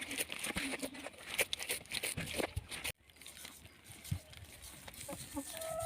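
Scattered small knocks and clicks of handling, then, near the end, a short wavering call from a domestic chicken.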